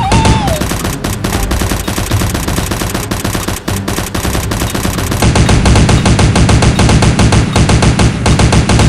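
Rapid automatic gunfire, a dense continuous rattle of shots that eases for a few seconds and then comes back louder about five seconds in.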